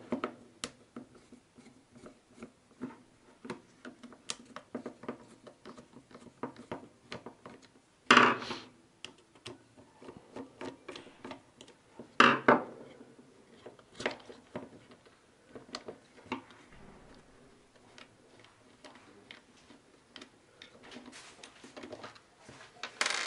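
Small plastic clicks, taps and rubbing from a Hyundai Getz steering column stalk switch being taken apart by hand, with two louder clacks about 8 and 12 seconds in.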